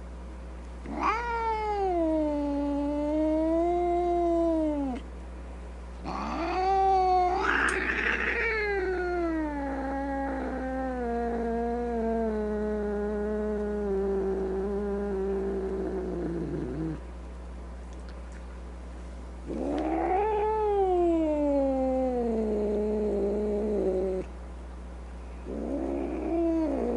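A cat yowling in long, drawn-out calls, four of them. The second call lasts about ten seconds and slowly falls in pitch.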